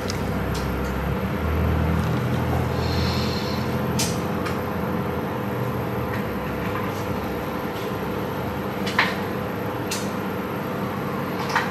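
A small machine running steadily with a low electrical hum, with a few light clicks and ticks.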